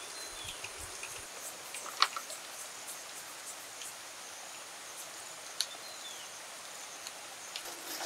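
Rainforest ambience: a steady high insect drone, a short falling bird chirp heard twice, and two sharp clicks, about two seconds in and again about five and a half seconds in.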